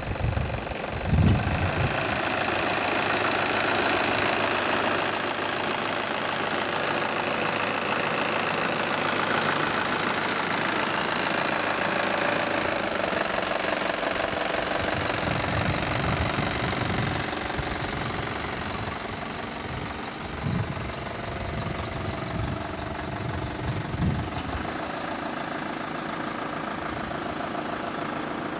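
A Nissan Elgrand's 3.0 litre NEO turbo-diesel four-cylinder engine running steadily with a diesel clatter. Several short low thumps come through about a second in and again in the second half.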